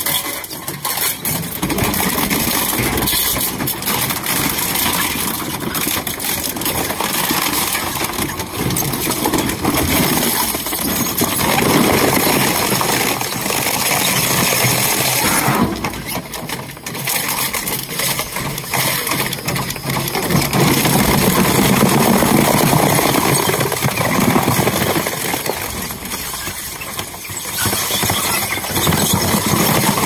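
Industrial refrigerator shredder running, its cutters tearing and crushing a refrigerator's sheet-metal cabinet and foam insulation: continuous grinding and crunching with metallic clatter, in louder and quieter stretches.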